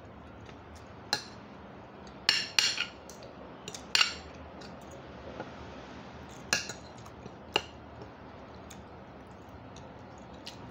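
Spoon and fork clinking and scraping against a plate while eating, in scattered sharp clinks, most of them bunched about two to four seconds in and again around six to seven and a half seconds.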